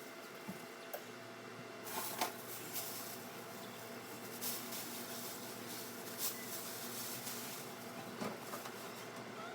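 Scattered light clicks, knocks and rustles of containers and food items being handled during fridge cleaning, over a steady low hum.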